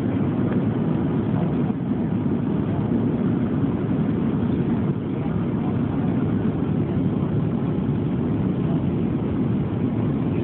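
Steady cabin noise inside a Boeing 737 jetliner in flight: engines and airflow as a low, even rumble.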